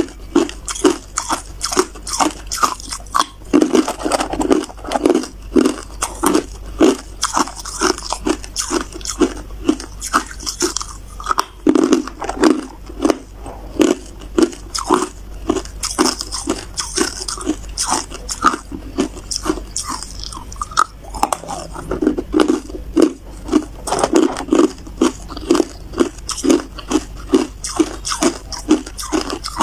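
Hard ice cubes being bitten and chewed, a steady run of crisp crunches at about three a second.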